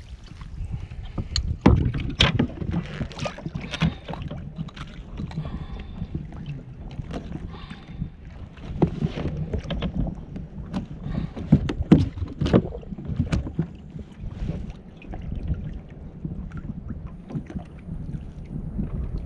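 Wind on the microphone and water against a fishing kayak's hull, under frequent short knocks and clicks of gear being handled on deck. The sharpest knocks come about two seconds in and again about twelve seconds in.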